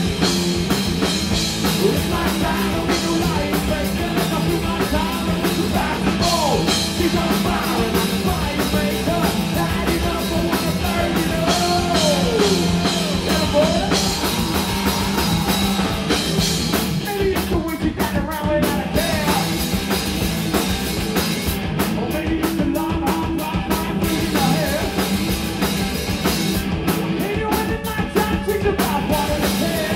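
Live rock band playing steadily: electric guitars through amplifiers with bass guitar and drum kit.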